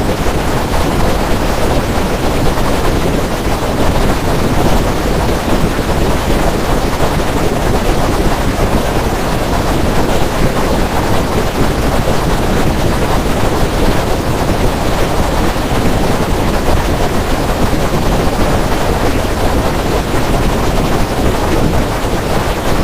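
Loud, steady rushing noise with no pitch or rhythm, heaviest in the low and middle range and unchanging throughout.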